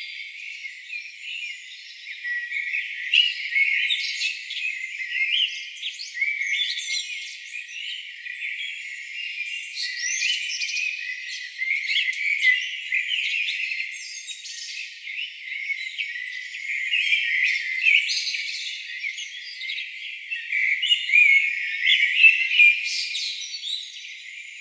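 Birdsong chorus: many small birds chirping and trilling over one another without a break, thin and high with no low sound at all.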